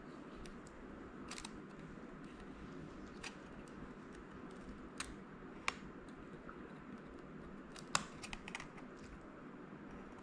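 Tweezers and a thin pry tool working under an M1 MacBook Air's shift keycap to free its clips and metal bar: faint, scattered small clicks and ticks, with two sharper clicks a little past halfway and about three-quarters in.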